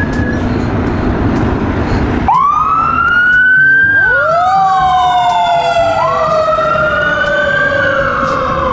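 Pierce fire engine's siren wailing, starting about two seconds in: slow tones that rise and then fall away, with a second rising wail overlapping near the middle. Before the siren starts there is a loud rough rumble.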